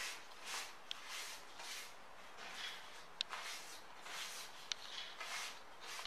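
Paper tissue rubbed over a paper banknote: repeated rustling wipes, about two a second, with a few sharp crackling clicks from the paper.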